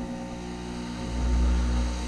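Sparkfun 303D hot air rework station running: its air pump hums steadily with air rushing from the handpiece, swelling louder about a second in as the knob is turned.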